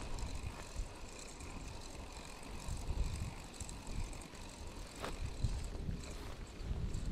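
Wind buffeting an outdoor body-worn microphone in uneven low rumbling gusts, with a single sharp click about five seconds in.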